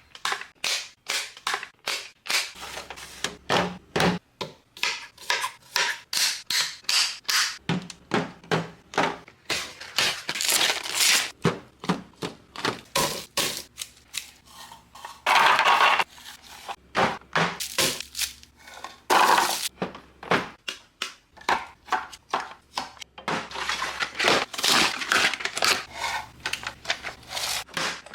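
Packaged snacks being set one after another into a plastic fridge drawer: a steady run of clicks, taps and knocks, with two louder, half-second bursts of noise about halfway through.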